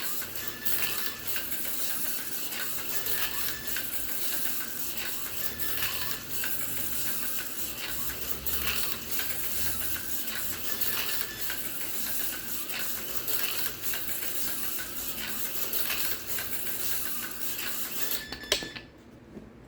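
Small-scale Porsche 962 slot car lapping a plastic track: a steady clatter of small clicks and rattles from the car running over the track, with short high beeps now and then. A sharp click about a second before the end, then the running stops.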